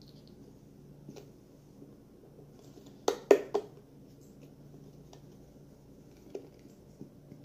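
Three quick, hard knocks, about a quarter second apart, from slime-making containers or utensils striking each other. A few lighter single taps come before and after.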